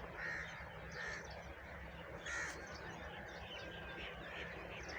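Crows cawing a few times, short separate calls, over the faint chirping of other birds.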